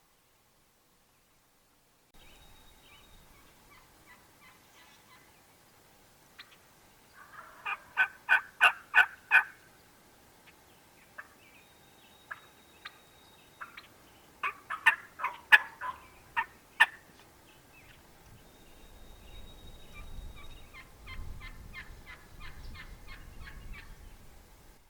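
Wild turkey gobblers gobbling: two loud gobbles, about seven and fifteen seconds in, and fainter gobbling near the end.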